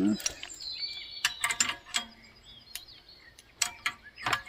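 Sharp metallic clicks, irregularly spaced, from the ratchet of an old chain lever puller as its lever is worked in reverse to let the chain out. Birds chirp in the background.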